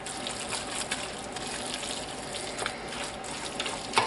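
Wooden spoon stirring a wet ground-meat, bean and salsa mixture in a stainless steel pot, making steady wet stirring and scraping sounds with small clicks. The spoon knocks sharply on the pot near the end.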